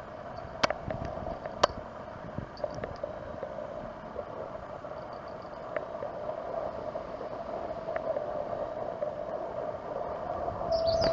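Steady outdoor background hum, with two sharp clicks in the first two seconds and a few faint, high chirps.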